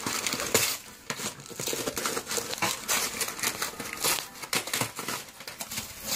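Wrapping paper and plastic crinkling and tearing in irregular bursts as a small dog rips into a present with its mouth.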